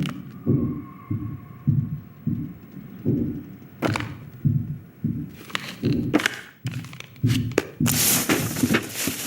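Soft, low thumps repeating steadily about every two-thirds of a second, with a few sharp clicks; in the last second or so a loud hissing noise comes in over them.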